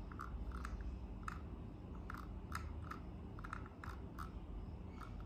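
Irregular, faint clicking at a computer, about two to three clicks a second, as a document is scrolled, over a low steady hum.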